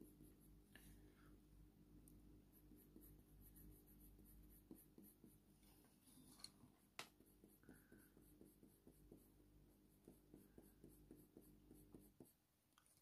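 Very faint scratching of a Faber-Castell Polychromos coloured pencil on hot-pressed watercolour paper, in short light strokes, over a low steady hum. There is one sharper tick about seven seconds in.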